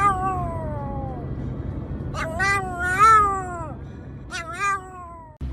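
Pomeranian howling in a car: three drawn-out, wavering calls that fall in pitch, the middle one the longest and loudest, over the low steady rumble of the moving car.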